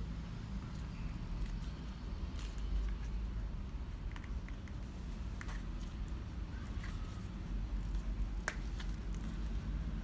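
Light handling of a fitness band and its box: scattered small clicks and rustles of plastic and cardboard over a steady low hum.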